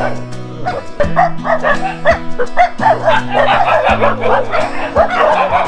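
Many dogs barking and yipping at once, the calls overlapping and growing denser about halfway through, over background music with low held bass notes.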